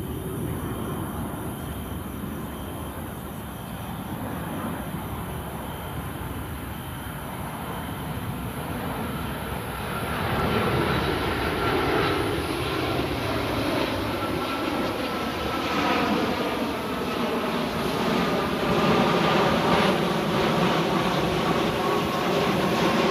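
Twin-engine jet airliner on approach to land, passing low overhead. Its engine noise grows louder from about halfway in, with a whine that slowly falls in pitch as it passes.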